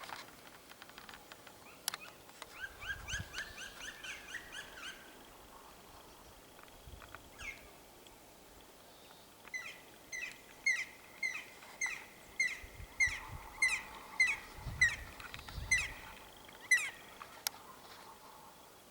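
Black woodpecker calling: a long, even series of about sixteen ringing, slightly down-slurred notes, roughly two a second, in the second half. A quicker series of bird notes comes a few seconds in.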